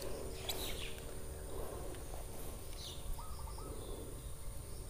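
Quiet outdoor ambience with a short run of three or four faint bird chirps about three seconds in.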